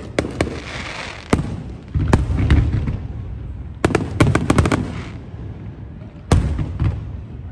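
Aerial fireworks shells bursting: sharp booms, each trailed by a low rumble, with a quick string of cracking reports about four seconds in.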